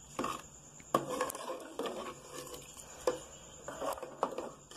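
Metal ladle stirring thick chana dal in an aluminium pressure cooker, scraping and knocking against the pot's sides and bottom in irregular clacks, about one or two a second.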